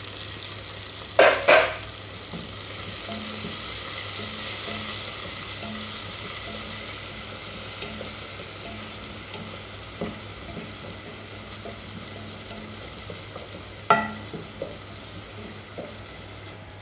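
Curry leaves and chopped onion frying in oil in a pot, a steady sizzle as a wooden spoon stirs them. A couple of sharp knocks of the spoon against the pot come about a second in, and another near the end.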